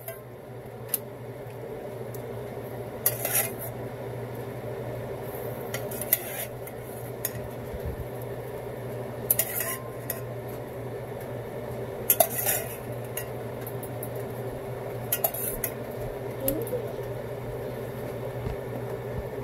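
A metal spoon or ladle scraping and clinking against a stainless steel stockpot while stirring a boiling seafood boil, in short bursts about every three seconds over a steady background hum.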